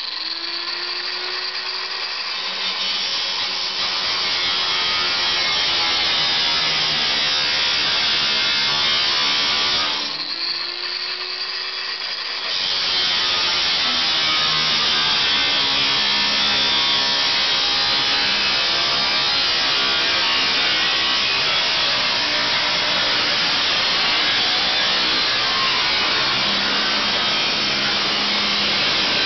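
Electric angle grinder with a cut-off disc slicing through the steel roof panel of a 1949 Plymouth, a loud, steady screech of cutting. About ten seconds in the cutting eases off for a couple of seconds and the motor's rising whine shows through, then the disc bites into the metal again.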